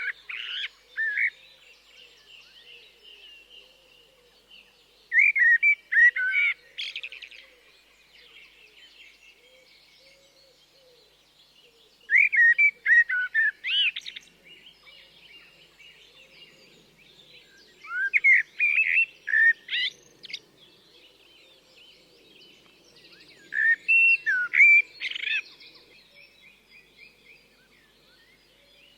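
Common blackbird (Turdus merula) singing: phrases of quick sliding notes, each about two seconds long, repeated every five to six seconds, with faint bird twittering in the pauses between.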